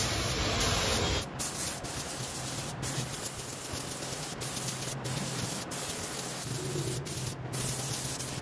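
Compressed-air spray gun hissing steadily as it sprays finish onto a wooden frame, with a few brief breaks where the trigger is let off. A louder noise with a low hum cuts off abruptly about a second in.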